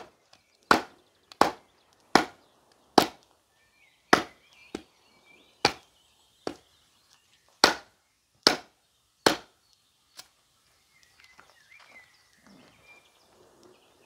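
About a dozen sharp wooden strikes, roughly one every 0.8 seconds, as a Cold Steel SR1 Lite folding knife is driven into a piece of very hard wood. The strikes stop about nine seconds in, leaving only faint small sounds.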